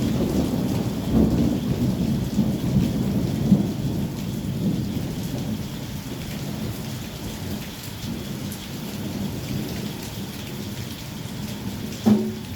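Heavy rain falling steadily, with a low rumble of thunder in the first few seconds that fades away. A short, sharp thump about twelve seconds in.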